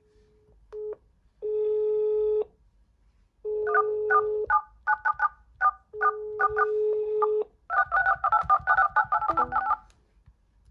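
Phone ringback tone, a steady low tone repeating in pulses of about a second while outgoing calls ring, overlapped from a few seconds in by rapid DTMF keypad beeps as digits are tapped on the in-call dial pads of OnePlus smartphones. The beeps come thick and fast near the end, followed by a short falling run of tones as a call ends.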